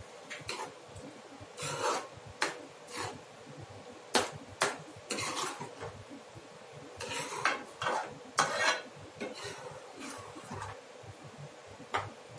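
Steel spoon scraping and clinking against a metal kadai while stirring a thick masala paste, in a dozen or so short, irregular strokes.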